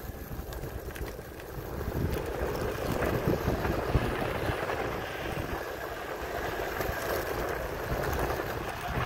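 Electric skateboard riding on a road: wind rumbling on the microphone together with the rolling noise of its soft 127 mm TPU wheels on the pavement, which grows louder from about two seconds in.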